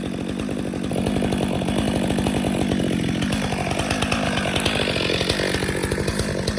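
Two-stroke chainsaw running hard, cutting into a tree trunk, its engine note shifting as the cut loads it.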